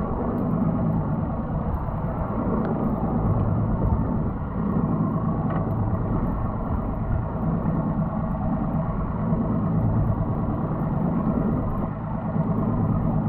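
Mercury outboard motor idling: a steady low rumble.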